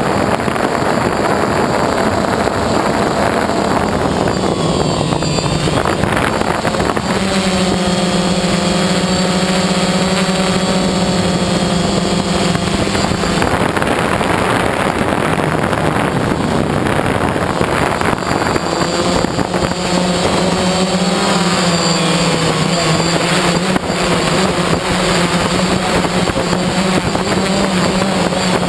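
DJI Phantom quadcopter's electric motors and propellers running in flight, heard close up from the camera on the drone: a steady buzzing whine whose pitch steps up and down several times as the motors change speed.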